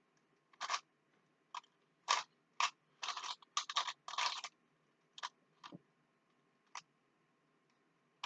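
Rubik's cube layers being twisted by hand: irregular plastic clicks and short clacking rattles, with a quick run of turns in the middle.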